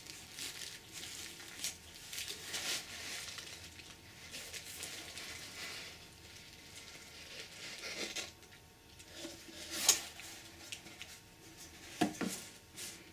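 Bubble wrap crinkling and cardboard box parts rustling as the packaging is handled with gloved hands. A sharp tick comes near ten seconds and a knock of cardboard on the wooden floor just after twelve seconds.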